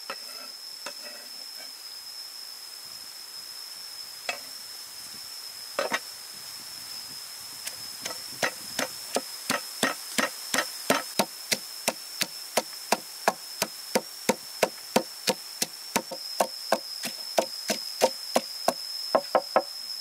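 Wooden pestle pounding garlic, chilies and lemongrass in a wooden mortar to make a chili paste. A few scattered knocks come first, then steady pounding at about two to three strokes a second from around eight seconds in. A steady high-pitched insect buzz runs underneath.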